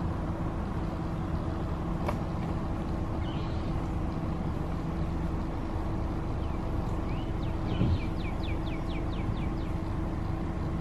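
Steady low outdoor drone with a faint constant hum, like distant traffic. About seven seconds in, a bird calls a quick run of about ten short falling notes, about four a second.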